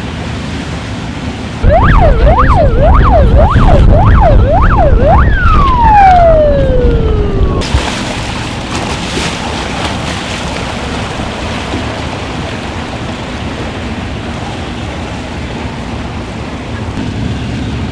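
Emergency siren sounding a fast rise-and-fall yelp, about two sweeps a second, for about four seconds. It then winds down in one long falling tone and cuts off. A steady rushing noise runs under it and goes on after.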